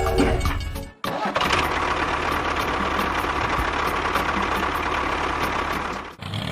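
The small motor of a DIY miniature tractor running steadily with a faint whine. It comes in abruptly about a second in and cuts off near the end.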